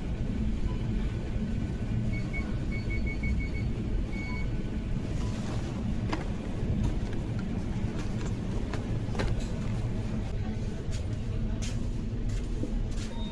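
Street traffic rumbling steadily, with a quick run of short high electronic beeps about two seconds in and scattered clicks.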